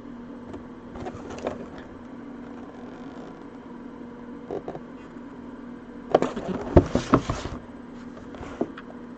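Handling noises from a mini football helmet and its packaging: scattered light clicks, then a louder patch of rustling and knocks about six seconds in, over a steady low hum.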